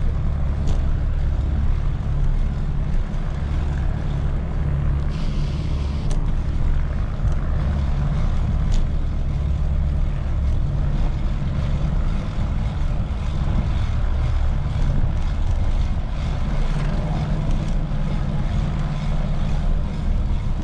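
Steady low rumble of wind on the microphone of a moving bicycle, over street traffic noise, with a brief hiss about five seconds in.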